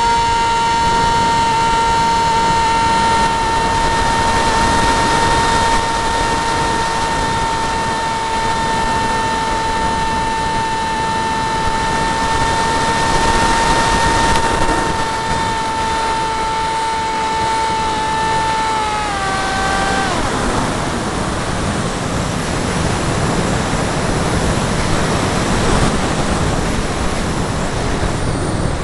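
Turnigy 3900kv brushless electric motor and propeller of a Zagi flying wing, heard from the onboard camera, whining at a steady pitch over rushing wind noise. About two-thirds of the way in, the whine steps down in pitch and fades out, leaving only the wind rush.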